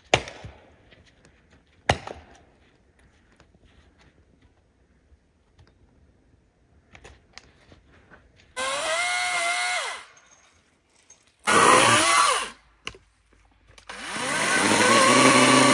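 Two sharp knocks, then a small power tool's motor run in three short bursts in the second half, its whine gliding in pitch as it speeds up and takes load.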